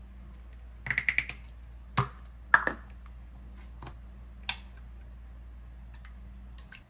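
Plastic skincare bottles handled at a bathroom sink: a quick run of about five clicks, like a foaming cleanser pump being worked, then a few single sharp clicks and taps of caps and bottles, over a low steady hum that stops near the end.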